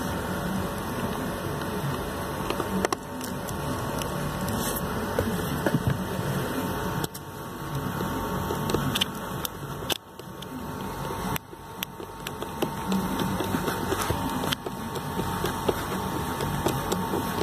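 Hand screwdriver turning the cabin filter cover's screw back in, a steady run of scraping and small clicks with a few brief breaks.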